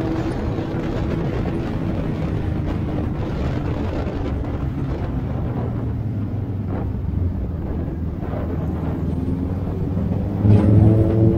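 Motorcycle engine running under way with wind and road noise. The revs drop just at the start, hold low and steady, then climb again near the end as the bike accelerates, which is the loudest moment.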